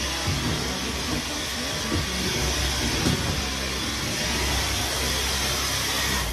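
Dyson cordless stick vacuum running steadily: a continuous hiss of suction over a low hum.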